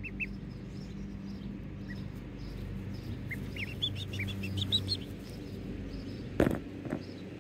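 Ducklings peeping: short high chirps, a few at first and then a quick cluster in the middle, over a steady low hum. Near the end there is a sudden loud knock.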